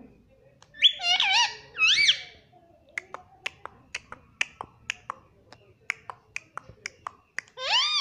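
Indian ringneck parakeet giving two short high calls about a second in, then a run of sharp clicks, about three or four a second, as its beak pecks and taps at a plastic box; another call near the end.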